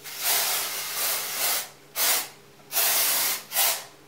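An aerosol can of hair product sprayed onto hair in four bursts of hiss: one long burst of about a second and a half, then three shorter ones.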